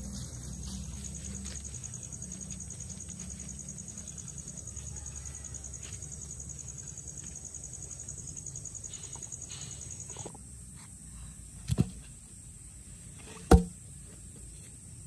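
A steady, finely pulsing insect trill over a low hum, which stops about ten seconds in; then sharp knocks, a quick double knock followed by a single louder one.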